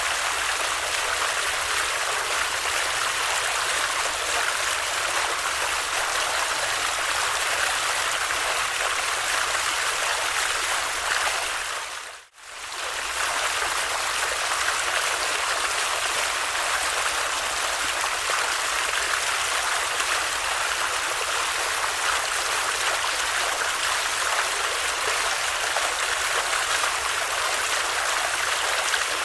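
A stream flowing steadily. About twelve seconds in, the sound briefly fades almost to silence and comes straight back.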